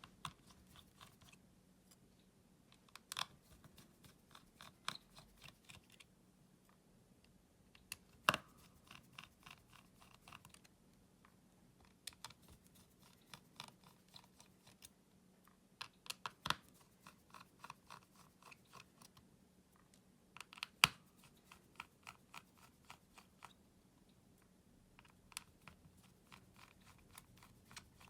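Faint clicking and tapping of small tools and parts against a smartphone being taken apart, in quick clusters of light clicks with a few sharper clicks, the loudest about eight and twenty-one seconds in.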